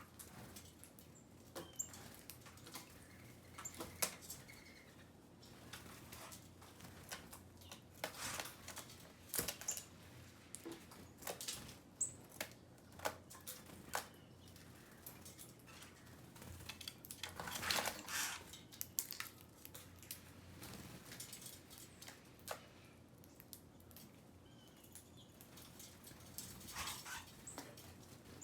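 Small wild birds feeding: scattered light pecking and pattering, a few louder rustling flurries, and occasional faint short chirps.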